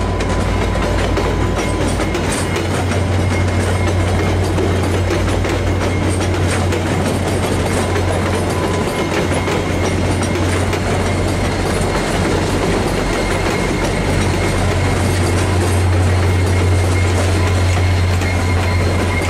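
VIA Rail passenger train rolling past, its cars clicking over the rail joints and switches. The low, steady drone of its diesel locomotive grows louder near the end as the locomotive comes by.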